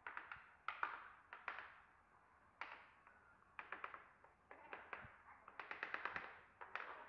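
Light hammer taps on wooden herringbone flooring planks as they are knocked into place. The taps come in short quick runs of several strokes with pauses between, the longest run coming near the end.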